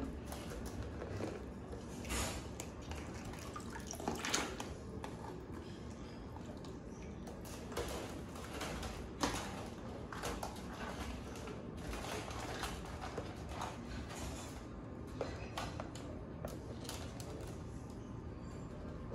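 Water dripping and splashing as live blue crabs are lifted out of a tub of water one by one, with irregular clicks and scrapes of their shells and legs on a wire mesh basket, over a steady low hum.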